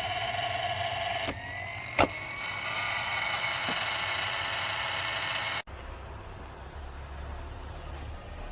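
Small cooling fan of a BESTEK 150 W car power inverter running with a steady whine whose pitch rises a little about a second in, with one sharp click about two seconds in. Near the end the whine cuts off abruptly, leaving a low hum.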